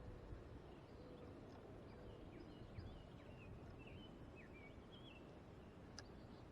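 Faint bird calls, a string of short chirps and whistled notes, over a low, steady background hiss.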